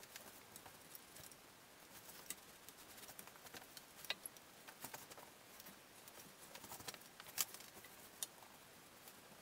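Faint, scattered light clicks and taps from paint being worked onto a wooden table base by hand, the sharpest about seven seconds in, over quiet room tone.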